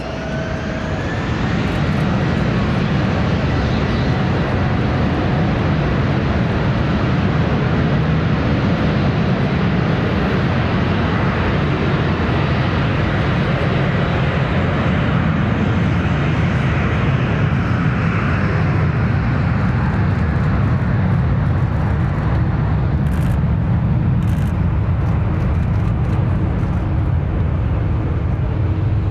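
Embraer Praetor 600 business jet's twin Honeywell HTF7500E turbofans flying past: a steady jet roar that builds over the first couple of seconds, with a faint rising whine at the start.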